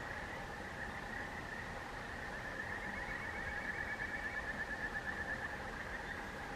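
A steady chorus of calling animals, with a louder, rapidly pulsing trill in the middle that fades away again.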